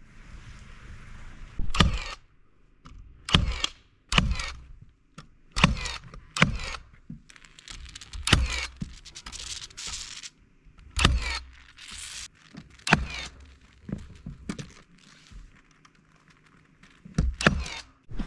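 Cordless nail gun firing nails through subfloor sheathing into the floor joists: about a dozen sharp shots at irregular intervals, a second or two apart, with shorter hissing noises between some of them.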